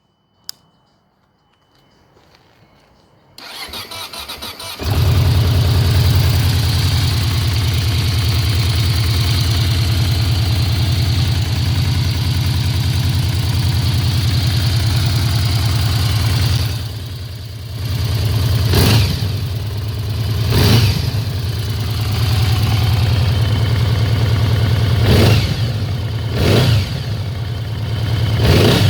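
2009 Yamaha VMAX 1700's V4 engine on a cold start with the stock exhaust: a click, the starter cranking for about a second and a half, then the engine catches and settles into a steady idle. In the second half it is blipped about five times, each rev rising and falling quickly.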